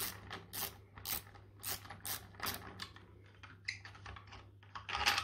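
Hand ratchet clicking in short strokes, about two to three a second, as it undoes stainless steel bolts threaded into a plastic valve housing. The clicks turn softer and sparser after about three seconds.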